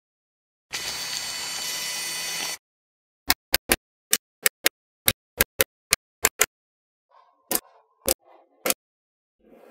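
Small neodymium magnetic balls snapping together one at a time, about fifteen sharp clicks in an uneven rhythm. Before them comes a steady hissing noise lasting about two seconds.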